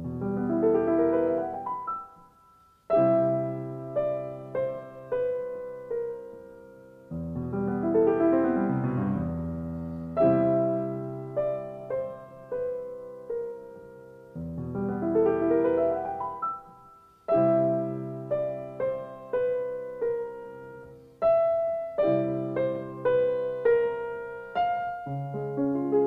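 Solo piano music, slow and gentle, with rolling arpeggios and held chords in phrases that repeat every several seconds.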